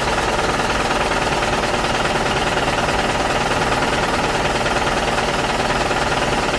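An engine or motor running steadily, with no change in speed or load.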